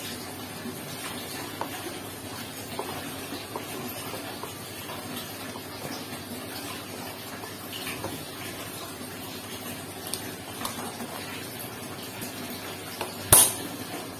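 Faint scraping and light clicks of a screwdriver turning a stripped ("slek") screw out of a car's throttle body, over a steady background hiss. One sharp knock near the end.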